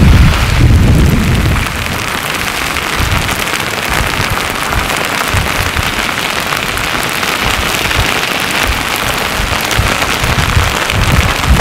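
Slabby pahoehoe lava front creeping forward, its crusted slabs scraping and grinding over the cooled older flow with a dense, continuous crackling. There is heavier low rumbling for the first second and a half, which then eases to a steadier crackle.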